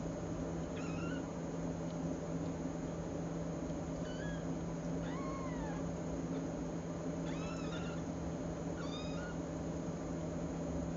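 Young kittens mewing, about five short high-pitched mews, one of them a longer rising-and-falling call, over a steady low room hum.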